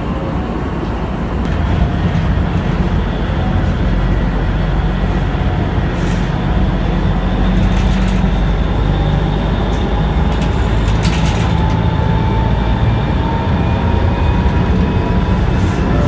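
A vehicle running steadily: a dense low rumble with a faint whine that slowly rises in pitch.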